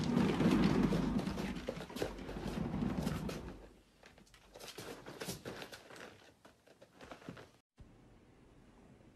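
Cat exercise wheel rolling with a low rumble and clatter as a cat moves in it, dying away about three and a half seconds in. Faint knocks and shuffles follow, then a brief dropout near the end.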